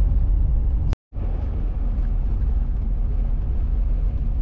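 In-cabin road noise of a vehicle driving on a gravel road: a steady low rumble of tyres and engine. It drops out to silence for a moment about a second in, then resumes.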